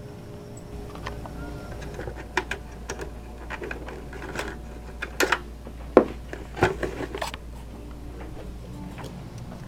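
Scattered knocks and clicks of a mounting plate and tools being handled at a wall during the fastening of a wall bracket, over a steady low hum.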